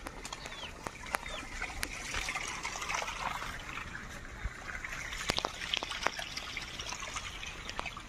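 Outdoor ambience: a bird gives two short downward-sliding chirps in the first second or so, over a steady hiss, with scattered sharp clicks and taps throughout.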